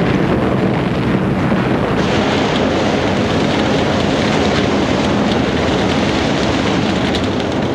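A loud, steady rumbling roar without clear separate blasts.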